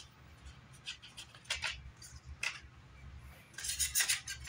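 Hand tools being picked up and set down on a workbench: scattered light clicks and clatters, with a busier cluster near the end.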